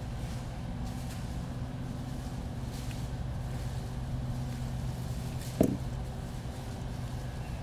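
Steady low electrical hum under small handling noises as a Caddx Vista video transmitter's bottom board is worked loose with a small tool. There is a faint click about three seconds in and a short knock a little over five seconds in.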